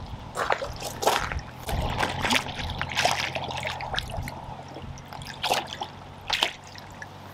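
Water splashing and dripping in irregular bursts as a hooked carp is brought to the bank and into a landing net, over a faint steady low hum.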